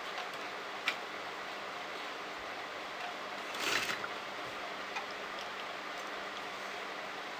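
Fabric and sequinned lace being handled at a sewing machine: a few light clicks and a brief rustle about three and a half seconds in, over a steady hiss.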